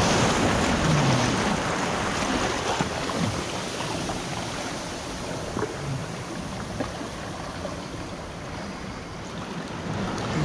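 Seawater surging in over rocks and foaming through a shallow rock pool, loudest in the first second or two and then easing off, with a few faint clicks scattered through it.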